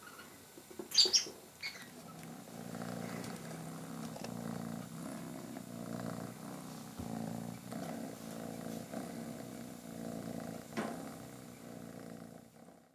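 Kitten purring steadily, starting about two seconds in and fading near the end, after a few short clicks at the start.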